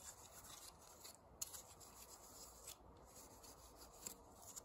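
Faint rubbing of a cloth rag over a plastic chainsaw part as it is wiped clean, with a couple of light ticks.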